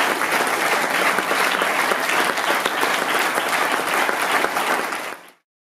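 Audience applauding, a dense steady clapping that fades out quickly about five seconds in.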